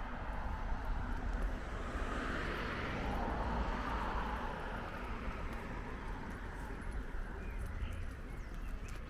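City street ambience: a vehicle passes, its tyre and engine noise swelling and fading over a few seconds, over the walker's footsteps on paving.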